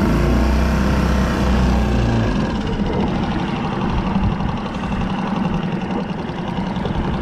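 A boat's outboard motor running steadily under way while trolling, mixed with water rushing along the hull. A heavier low rumble sits under it for the first two seconds.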